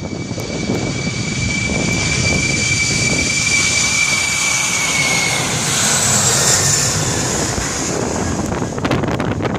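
Boeing 747-400's four General Electric CF6-80C2 turbofans at takeoff thrust on the roll and liftoff: a loud jet roar carrying a high fan whine, which fades out about halfway through as a strong hissing roar takes over while the jet passes. Near the end, gusts of jet blast start buffeting the microphone.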